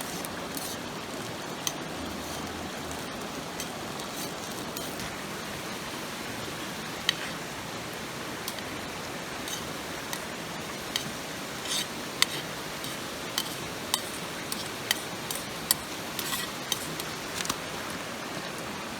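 Steady rushing of a mountain stream, with scattered sharp clinks of metal cooking utensils that come more often after the first few seconds.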